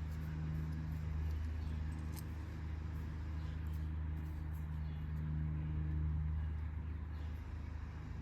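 A steady low mechanical hum, even throughout, with a few faint light clicks.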